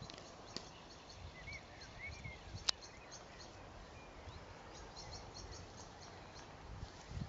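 Quiet outdoor ambience with runs of faint, very short high chirps and a couple of soft rising-and-falling whistles from small birds, a low rumble, and one sharp click between two and three seconds in.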